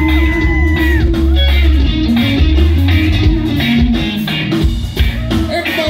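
Live rock band playing an instrumental funk-rock jam: electric guitars, bass guitar and drums, loud, with a lead guitar holding and bending long notes over a heavy bass line.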